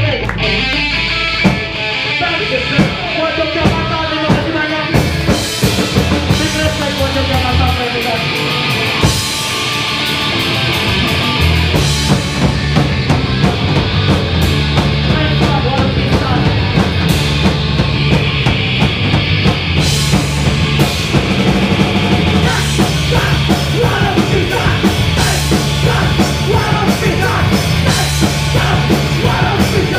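Live punk rock band playing: drum kit, electric guitar and bass, with a singer's vocals later on. For the first dozen seconds the playing is looser, with scattered drum hits, then the full band locks into a steady driving groove about twelve seconds in.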